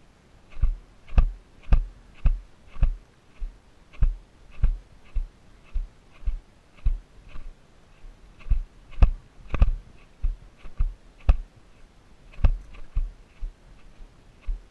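A loose GoPro Hero camera mount clicking against the rider's helmet, about two sharp clicks a second, jolted by the horse's steps.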